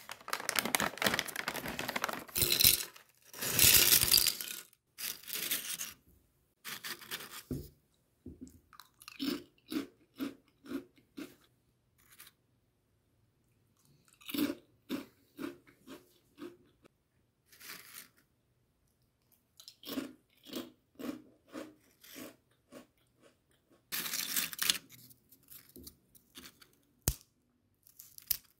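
A foil snack pouch torn open and crinkled, then dried fish cake chips crunched in a run of short, crisp bites and chews, with another pouch rustle near the end.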